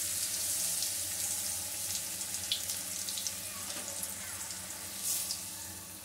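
Batter- and crumb-coated eggplant sizzling in hot vegetable oil in a kadai just after being lowered in, a dense hiss with scattered crackles that eases slightly toward the end.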